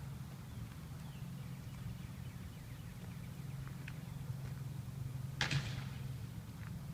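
Construction-site ambience: a steady low machinery hum with faint bird chirps, and one sharp knock about five and a half seconds in.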